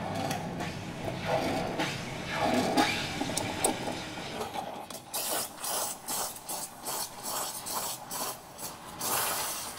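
A broom sweeping a paved street, its bristles scraping in quick repeated strokes of about three a second during the second half.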